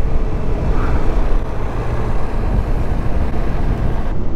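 Steady rumble of riding a KTM 390 Adventure motorcycle: wind buffeting the microphone over the engine running.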